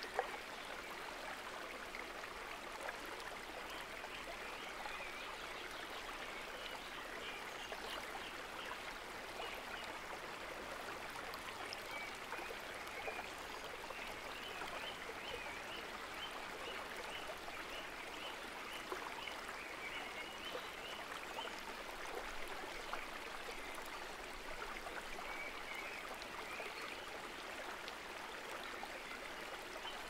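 Steady rushing of a shallow mountain creek flowing over stones. A single sharp click just at the start, and faint runs of evenly spaced high chirps now and then.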